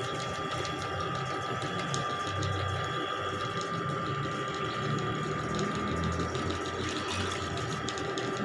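Electric drain-cleaning machine running steadily: a constant motor whine over an uneven low rumble, as it works to clear a clogged drain.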